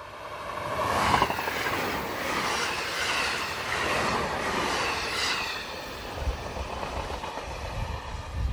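JR Hokkaido electric local train, a 731 series unit coupled to a 721 series, passing at speed. It swells quickly as it arrives, then its bogies clatter in repeated rhythmic sets over the rail joints for about four seconds. Near the end it falls away to a lower, gusty rumble as it recedes.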